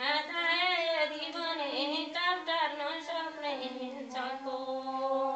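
A woman singing unaccompanied, a sangini-style Nepali folk song: a single voice in a wavering, ornamented line that settles into a long held note about two-thirds of the way through.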